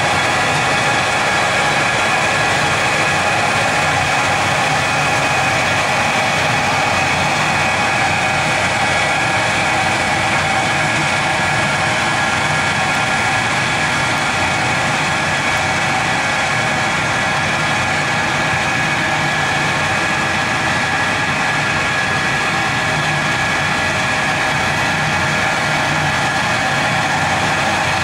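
A machine running steadily at a constant speed, a continuous hum made up of several steady tones that does not change.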